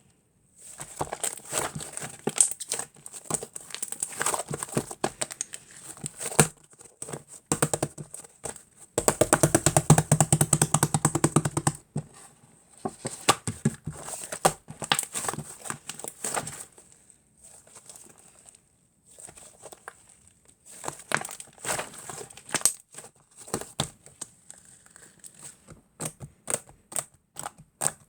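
Hands squeezing, poking and stretching a soft, fluffy mixed slime, making bursts of sticky clicks and crackles from trapped air, densest and most continuous about nine to twelve seconds in.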